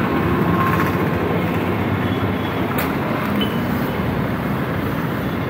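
Busy street traffic: a steady mix of motorbike and vehicle engines passing on a town road.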